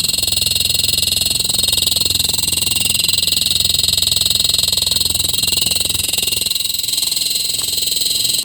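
LG refrigerator fan making a loud, steady, fast pulsing buzz: the fan noise the owner wants to stop.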